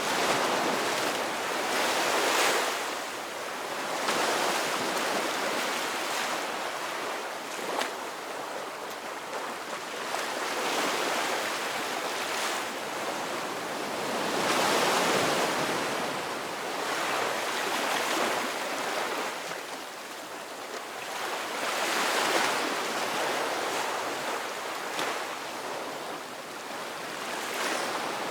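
Ocean surf: waves breaking and washing in, swelling and fading every few seconds in a steady rolling hiss.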